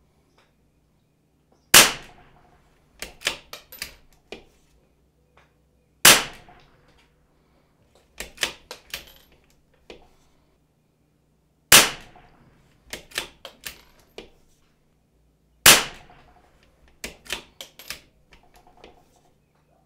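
CZ 457 bolt-action .22 LR rifle firing CCI standard velocity rounds: four sharp shots about four to five seconds apart. After each shot comes a quick cluster of lighter metallic clicks as the bolt is cycled to chamber the next round.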